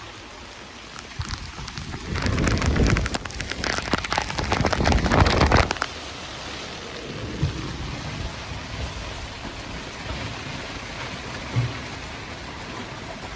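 Heavy rain falling on a sailboat's canvas cockpit enclosure, a dense patter with two louder surges a couple of seconds and about four seconds in, then settling to a steadier fall.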